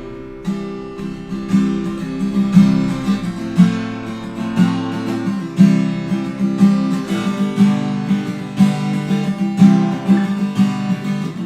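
Instrumental music without singing: an acoustic guitar strumming chords in a steady rhythm.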